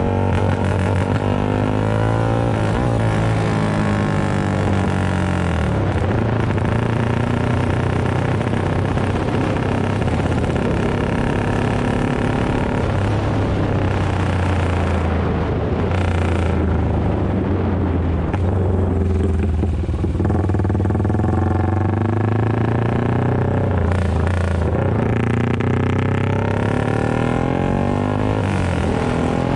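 A Yamaha FZ150i (Vixion) 150 cc single-cylinder four-stroke engine runs loud through an aftermarket GP-style exhaust while being ridden. Its pitch rises and falls again and again as the bike accelerates and eases off the throttle.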